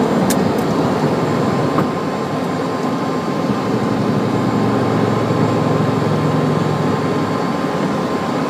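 Inside the cockpit of a Cessna Citation II, its twin Pratt & Whitney Canada JT15D turbofans run at takeoff power as the jet lifts off and climbs. The sound is a loud steady noise, with a thin steady whine from about two seconds in.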